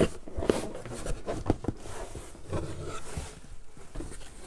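Cardboard scraping and rustling in irregular bursts, with small knocks, as a tightly fitting boxed figure is worked out of a cardboard shipping box.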